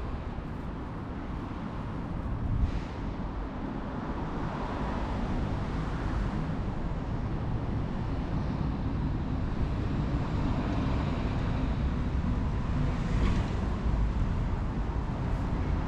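Steady outdoor ambience: an even low rumble heaviest in the bass, with two brief faint sounds about three seconds in and near the end.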